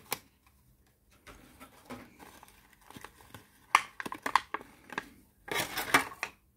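Plastic blister packaging and its card crinkling and clicking as a small die-cast toy vehicle is worked out of it by gloved hands. The sound comes in short, scattered bursts, loudest about four seconds in and again around six seconds.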